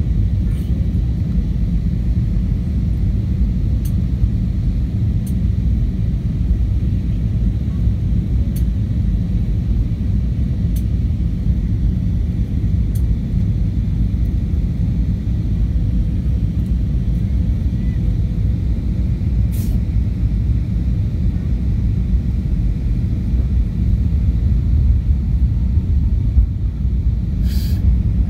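Steady low cabin rumble inside an Airbus A320-232 on its descent, the airflow and engine noise of its IAE V2500 engines heard from a window seat. A few faint short clicks sound over it, the clearest about two-thirds through and near the end.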